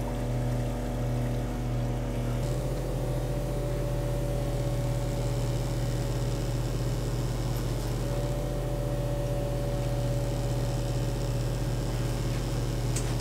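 Spectra watermaker running on a boat, a steady machinery hum with a steady higher tone over it, during the first run after a new membrane was fitted. Output is only about 3 gallons an hour, which the owner thinks may come from the Clark pump.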